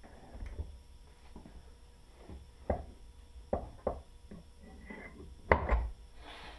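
Knocks and clunks of a Honda B-series aluminium cylinder head being handled and set down onto a head stand: a few light knocks, then the loudest clunk about five and a half seconds in.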